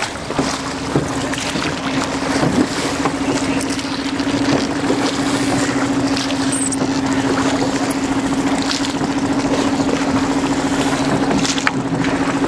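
A boat's engine running steadily, a low hum with a fast, even pulse that sets in about half a second in. Wind and water noise run under it, with a few faint knocks.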